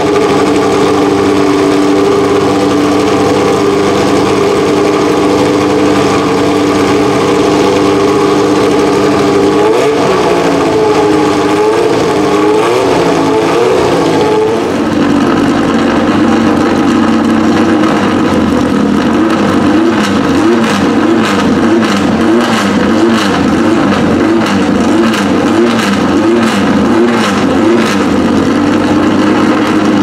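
Historic Formula 1 racing engines warming up in the pits. The first idles steadily with a few throttle blips; halfway through a second engine takes over, idling and then revved in quick repeated blips.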